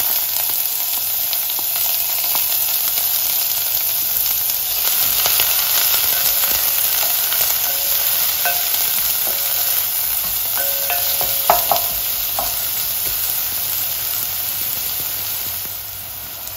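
Chopped red onion sizzling in hot olive oil in a stainless steel pot while it is stirred with a wooden spoon, with a couple of sharp clicks about two-thirds through. The sizzle quietens near the end.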